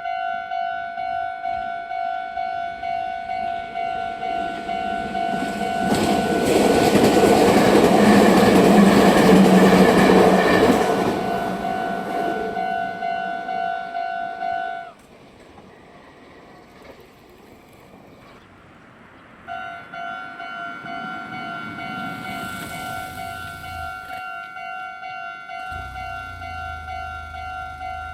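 Electronic level-crossing warning bell of the Meitetsu type ringing in an even, repeating rhythm while a Meitetsu train passes over the crossing, loudest about six to eleven seconds in. The bell stops about fifteen seconds in as the crossing clears, then starts ringing again about four seconds later.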